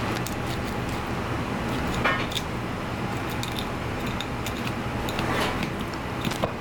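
Filleting knife scraping and clicking along the backbone of a belt fish (hairtail) on a cutting board, with a few brief scrapes among short clicks, over a steady low hum of background noise.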